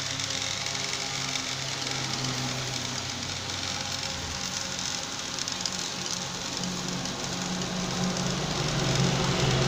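Fish sizzling in wire grill baskets over hot charcoal, a steady hiss, with the low hum of passing highway traffic that grows louder near the end.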